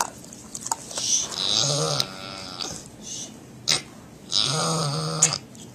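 Sleeping domestic pig snoring, two long breathy snores about a second each, one about a second in and one near the end, with a few short clicks between.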